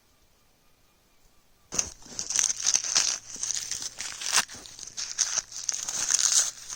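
Close, loud crinkling and rustling with many sharp crackles, like stiff material being crumpled or handled. It starts suddenly about two seconds in.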